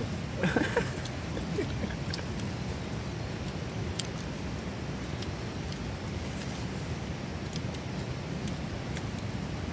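A steady low background rumble with faint, sparse clicks and sticky smacks of fingers picking at the meat and rice on a cooked pig's head, and a brief louder mouth or handling sound just under a second in.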